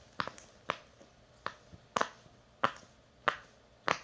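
Silicone push-pop bubble fidget toy having its bubbles pressed through one after another: about eight sharp pops, roughly half a second to a second apart.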